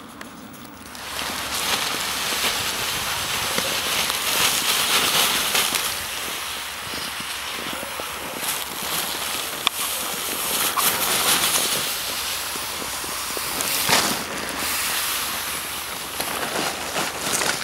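Crunching snow underfoot: a continuous crackly hiss with scattered sharper clicks, starting about a second in.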